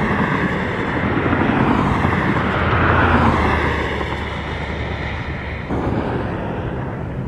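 A vehicle passing by: a broad rushing engine noise that grows to its loudest about three seconds in, then slowly fades.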